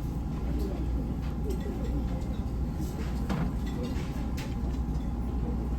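Steady low hum of the ferry's onboard machinery, with a faint murmur of voices and a few light clicks of tableware.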